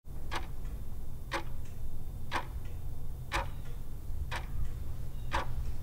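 Clock ticking, about one tick a second, over a low steady hum: a sound effect marking time passing.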